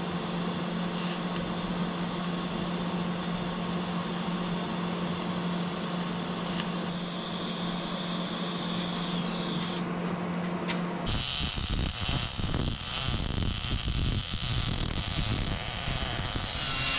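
Arc welding on a steel crossmember. For the first eleven seconds a TIG welder runs with a steady electrical hum and a thin high whine. Then, after an abrupt change, MIG welding gives an irregular crackling sizzle.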